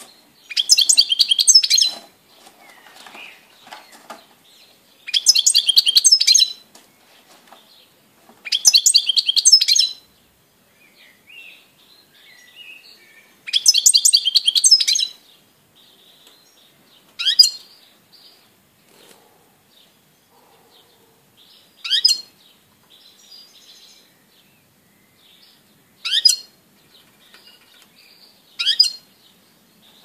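Caged European goldfinch singing: four phrases of rapid, high twittering notes, each about a second and a half long, in the first half. Four short single call notes follow, spaced a few seconds apart.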